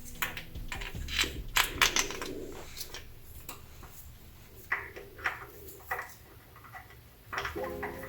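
Irregular light clicks and knocks of tools and parts being handled, several close together in the first few seconds and then sparser.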